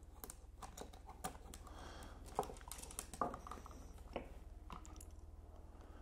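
Faint, irregular small clicks and taps of a bare copper ground wire and a plastic USB outlet being handled by hand, as the wire is hooked onto the outlet's ground screw.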